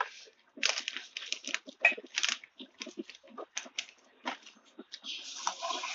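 Chewing close to the microphone: a run of irregular crunchy clicks and mouth smacks while food is eaten. A steady hiss comes in near the end.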